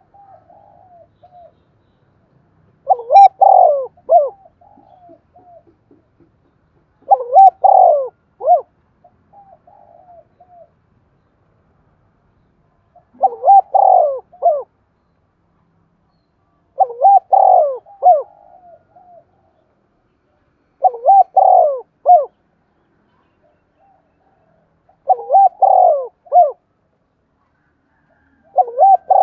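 Spotted dove cooing: seven loud phrases of several coo notes, one about every four seconds, with quieter, shorter coos between the first few.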